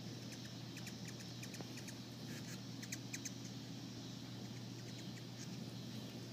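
Hummingbirds giving quick series of high, sharp chip notes in the first half, over a steady low hum.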